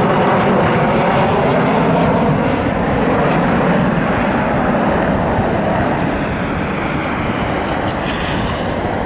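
An airplane's engines passing by, a loud steady rush with tones that slide down in pitch over the first few seconds, then easing off slowly.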